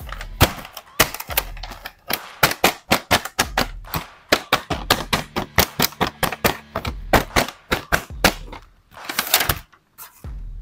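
Crinkly plastic toy packaging crackling and rustling as an action figure is unwrapped by hand: a rapid, irregular run of sharp crackles, with a longer rustle about nine seconds in.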